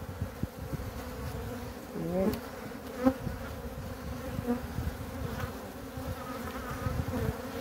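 Honey bees buzzing as a steady hum over an open hive as its frames are handled, from a colony the beekeeper calls bad-tempered. There is a sharp click about three seconds in.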